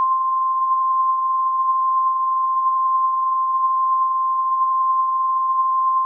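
Emergency Alert System attention tone: one steady, loud, pure tone just above 1 kHz, in the manner of the 1050 Hz weather-radio alert tone, marking that a new alert message is about to begin.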